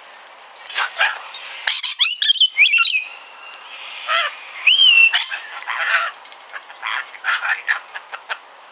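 Pet rainbow lorikeet chattering and squawking in short harsh calls, with a burst of quick warbling whistles about two seconds in and a short rising whistle near the middle.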